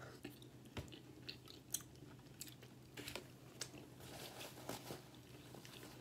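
Close-miked chewing and wet mouth sounds of someone eating loaded cheese fries, scattered small clicks and crunches, with a paper napkin rustling against the hands in the second half, over a faint steady hum.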